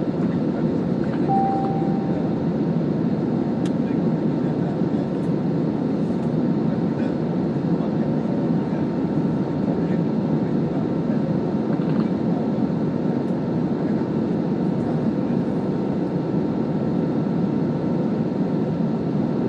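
Steady engine and airflow roar inside a commercial airliner cabin during the climb after takeoff, with a short beep about a second in.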